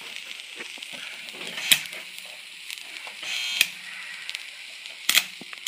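Stick welder's 6013 electrode being scratched and tapped on a snowmobile ski's steel wear bar to strike an arc: a steady faint hiss, a few sharp clicks and a short buzz about three and a half seconds in. The rod is stubborn and won't hold an arc.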